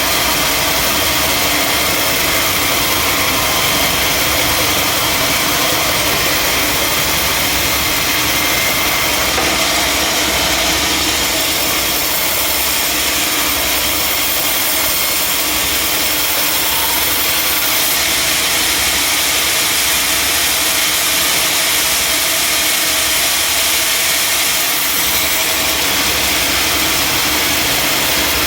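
Sawmill machinery running steadily: a loud, continuous engine-like noise with a strong hiss, unchanging throughout.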